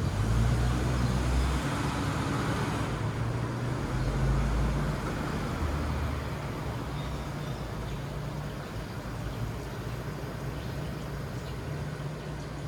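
Low, steady engine-like rumble, louder for the first few seconds and easing off after about six seconds.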